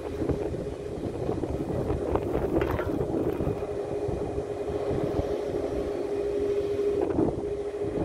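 Distant Boeing 737 MAX 8's CFM LEAP-1B jet engines running with a steady whine as the airliner rolls along the runway, under wind rumble on the microphone.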